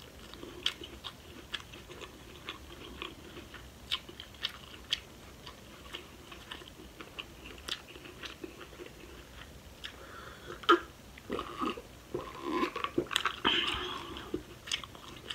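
Close-miked chewing of saucy seafood-boil food, with scattered wet mouth clicks and smacks. The chewing gets louder and busier for the last few seconds.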